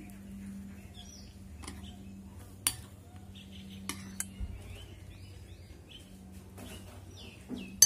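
Metal spoon clinking against a glass bowl as a jack leaf is coated in thick gram-flour batter: several sharp clinks, the loudest near the end.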